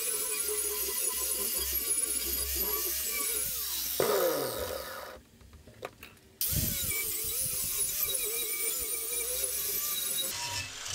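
A 4.5-inch angle grinder fitted with a wire wheel is brushing rust off rebar, its whine wavering as the wheel is pressed onto the bar. About four seconds in it is switched off and winds down with a falling whine. After a short pause with a single click, it starts up again and runs on.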